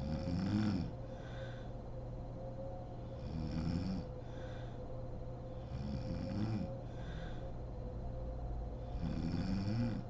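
A sleeping woman snoring: four snores about three seconds apart, each with a pitch that rises and falls, and each followed by a fainter breath.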